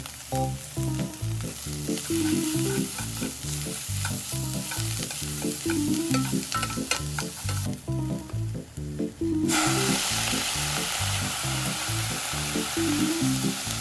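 Food sizzling in a frying pan as it is stirred, with utensil clicks against the pan. The sizzle stops for about two seconds midway, then comes back louder. Background music plays throughout.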